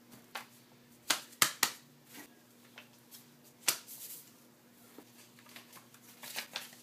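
Post-it notes being handled and stuck onto clothing: a few sharp paper snaps and taps, three close together about a second in and another just before four seconds, with lighter ones near the end.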